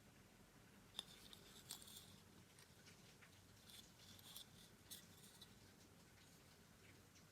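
Faint, quiet hand work: a sharp click about a second in, then scattered light clicks and short scraping or rubbing strokes of small parts being handled.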